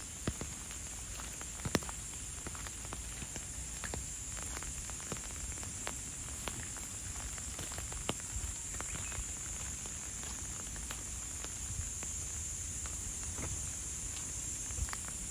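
Light rain: scattered raindrops ticking and pattering at irregular intervals over a steady background hiss, with a sharper tick about two seconds in.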